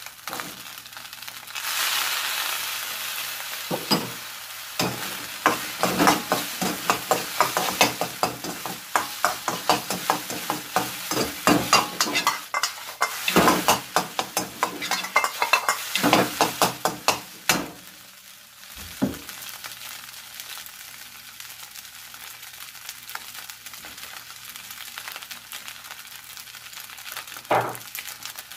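Rice and egg sizzling in a hot iron wok, stirred and tossed with a wok ladle. For much of the time the ladle clatters and scrapes rapidly against the wok. Then the clatter stops and only a steadier, quieter sizzle remains, with one more knock near the end.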